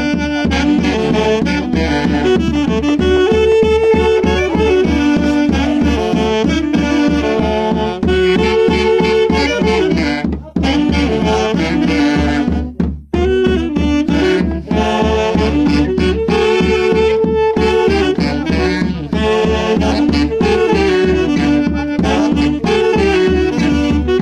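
A small band of four saxophones and a bass drum playing a Santiago-festival tune: the saxophones carry the melody over a steady beat of the drum. The music drops out briefly twice, about ten and thirteen seconds in.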